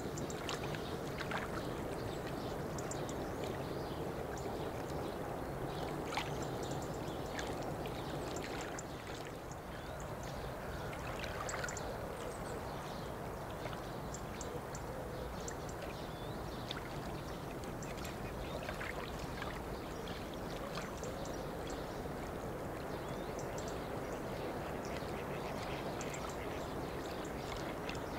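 Open riverbank ambience: a steady low rumble under scattered short, high-pitched calls and ticks.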